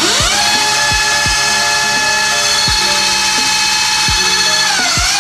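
Segway electric dirt bike's motor, run through an ASI BAC4000 controller, spinning the rear wheel with no load. A loud whine comes in suddenly and rises quickly in pitch as the wheel spins up, holds steady, then wavers up and down near the end.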